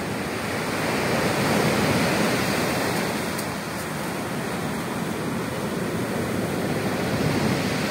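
Sea surf breaking and washing up a pebble beach, a steady rush of waves that swells to its loudest about two seconds in.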